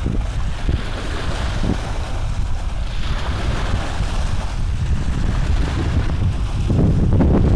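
Steady rumbling noise on the microphone, like wind or handling noise, with soft rustling as cross-stitch canvas and thread are handled. It grows louder near the end.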